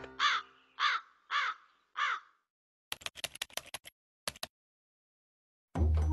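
A crow cawing four times, short caws evenly spaced about half a second apart, followed by a quick run of sharp clicks like a typing sound effect; music starts near the end.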